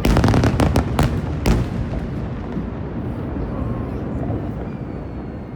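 Aerial fireworks bursting: a loud boom at the start, a quick run of sharp crackling reports over about a second and a half, then a low rumble that slowly fades.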